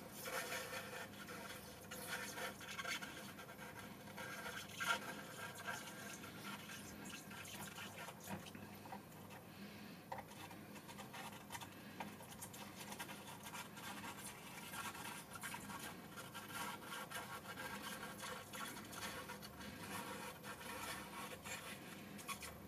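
Soldering iron with a wide tip being worked along the pins of a PCI Express slot on a motherboard, giving faint, irregular scratching and crackling, with one sharper click about five seconds in.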